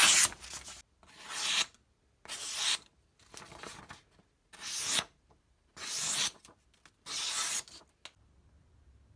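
Restored folding pocket knife blade slicing through a held sheet of paper, seven separate cuts about a second apart, each a short swelling rasp. These are paper-cutting strokes testing the sharpness of the freshly sharpened edge.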